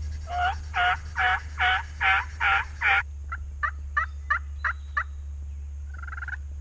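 Turkey yelping: a run of seven loud, evenly spaced yelps, each breaking upward in pitch, followed by seven shorter, sharper notes in quick succession and a single brief note near the end.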